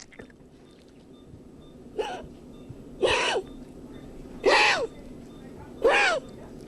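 A small animal's abnormal breathing sound: four short pitched noises about a second and a half apart, each rising then falling in pitch.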